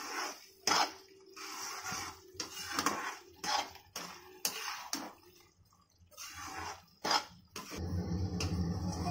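Metal ladle stirring thick, simmering tomato paste in a steel kadai: repeated scrapes and knocks against the pan with soft wet sounds of the paste between them. A steady low hum sets in near the end.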